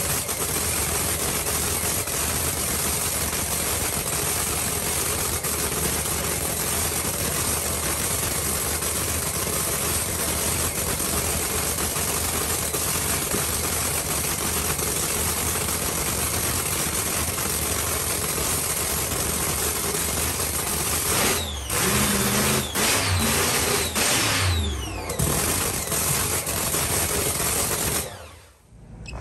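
Supercharged V8 drag-racing engine of a Pro275 Camaro running loud and steady with a busy, rattling idle. It is revved a few times about three-quarters of the way in, and the sound cuts off near the end.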